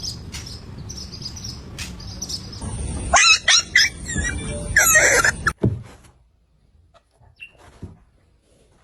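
A run of short, sharp animal calls starting about three seconds in and loudest around five seconds, then mostly quiet with a few faint clicks.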